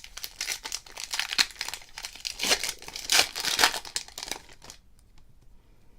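Foil wrapper of a 2017 Topps Holiday baseball card pack being torn open and crinkled. It runs for about four and a half seconds, then stops.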